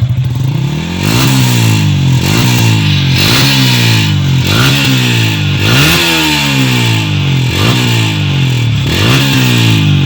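Yamaha Sniper 155's single-cylinder engine through an UMA Racing aftermarket exhaust, revved from idle in short throttle blips about once a second. The exhaust note thumps but has a cracked, raspy edge.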